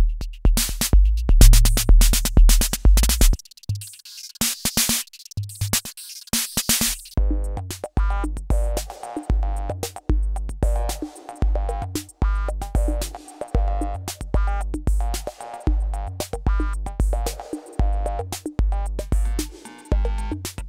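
Roland TR-6S drum machine playing a factory drum pattern: a dense beat with heavy bass drum and hi-hats, thinning out after a few seconds. About seven seconds in, a different pattern takes over with a steady kick about twice a second under pitched electronic percussion.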